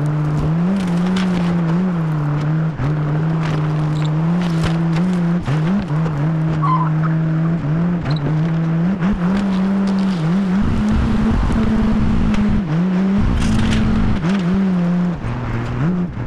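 Loader engine running under work, its pitch stepping up and down as the throttle and load change. A few sharp clanks are heard, and there is a harsher, noisier stretch of a few seconds about two-thirds of the way in.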